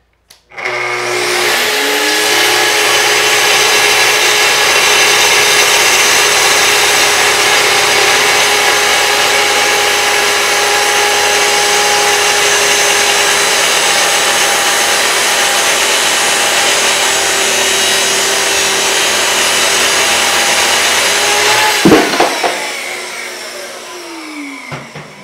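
Festool TS 55 track saw spinning up and crosscutting through two stacked maple boards along its guide rail, running loud and steady for about twenty seconds. Near the end a sharp clack, then the motor winds down with a falling pitch.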